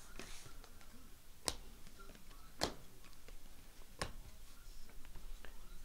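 Trading cards being handled: three sharp clicks spread over a few seconds, with fainter ticks between, as glossy cards are flicked and set down.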